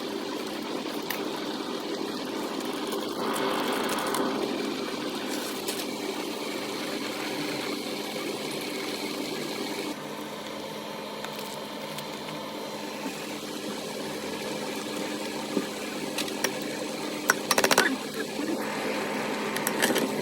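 A steady mechanical hum, with a few sharp clicks or clinks near the end.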